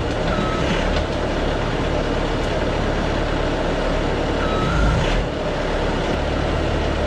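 Skid loader engine running steadily, with two brief high squeaks about four seconds apart.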